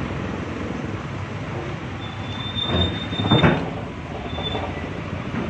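Car running along with steady rumbling road noise, two knocks near the middle, and a thin high squeal that comes in twice.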